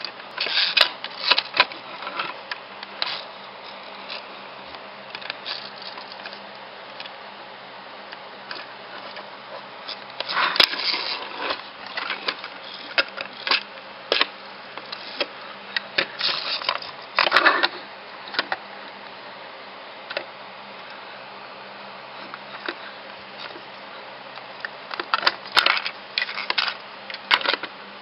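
Toy train engines pushed by hand along a wooden tabletop: irregular bursts of wheel rattling and scraping with sharp clicks, over a low steady hum.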